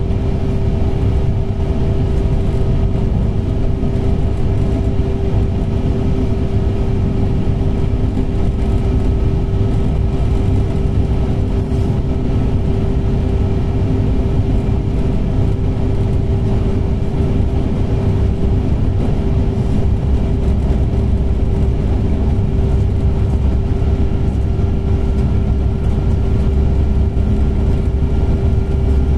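Running noise inside a TER regional passenger train at speed: a steady low rumble with a constant humming tone over it. The low rumble grows a little louder in the last several seconds.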